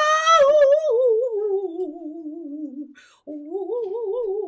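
A person singing two long held notes with wide vibrato. The first starts high and slides down over about three seconds; after a short break, a second, lower note wavers on.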